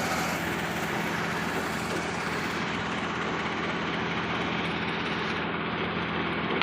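Heavy engine of readymix concrete equipment running steadily at a constant pitch, with no change in speed.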